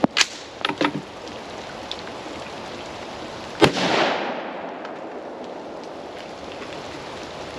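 Rain hissing steadily, with sharp metallic clacks and clicks in the first second as the AR-15 is handled in a reload, then a single rifle shot about three and a half seconds in that rings out and fades over about a second.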